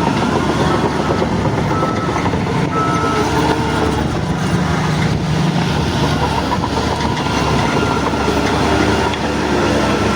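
Bulldozer's diesel engine running steadily under load, with a metallic clatter from its crawler tracks.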